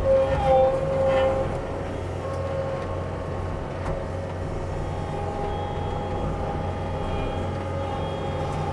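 Sany excavator's diesel engine running with a steady drone and whining hydraulics, a little louder for the first second or so, then settling.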